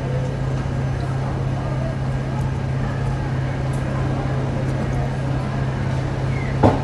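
Steady low hum of restaurant background noise with faint voices in it, while noodles are slurped from a bowl; a short sharp sound near the end.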